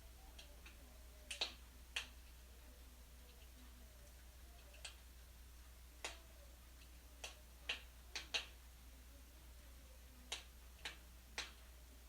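Wood fire in a fireplace crackling: about a dozen sharp pops and snaps at irregular intervals, some in quick pairs, over a faint wavering whistle and a steady low hum.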